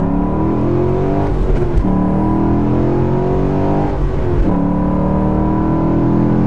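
2017 Chevrolet SS's 6.2-litre LS3 V8 accelerating hard through the gears of its six-speed manual, heard from inside the cabin. The engine note climbs steadily, drops at an upshift about a second and a half in, climbs again, and drops at a second upshift about four seconds in.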